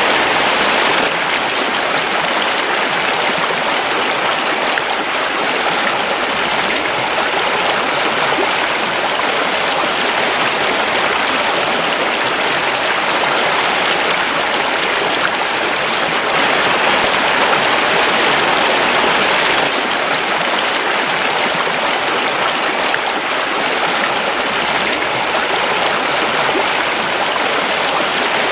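Forest river flowing steadily over rocks: a continuous rushing of water with no other sounds.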